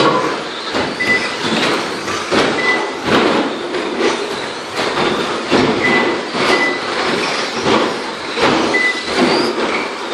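Several 1:10 short-course RC trucks racing on an indoor carpet track: motors whining and tyres rumbling over the carpet, with frequent clattering knocks as the trucks land jumps and hit the track borders, echoing in the hall. About five short high beeps sound in between.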